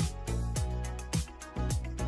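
Background music with a steady beat of deep drum hits about twice a second over sustained instrumental tones.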